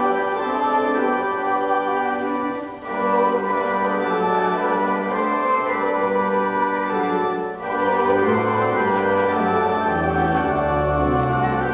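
Church organ playing slow sustained chords, with brief breaks between phrases about three and seven and a half seconds in, and deep bass notes coming in near the end.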